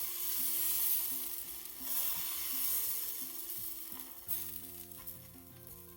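Crêpe batter sizzling on a hot oiled griddle, the sizzle fading after about four seconds, with a short knock about four seconds in. Quiet background music plays underneath.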